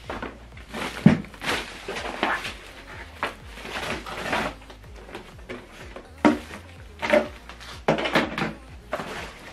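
Unpacking noise: cardboard and plastic packaging rustling and scraping, with irregular knocks as a boxed subwoofer and its cardboard inserts are lifted out and set down. Sharp knocks come about a second in and again about six seconds in.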